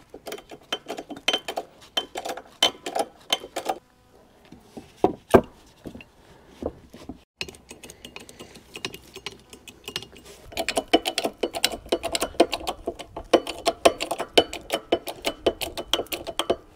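Hydraulic 12-ton bottle jack being pumped by hand, its steel handle clicking and clinking in the pump socket about three times a second, in two spells with a few scattered knocks between.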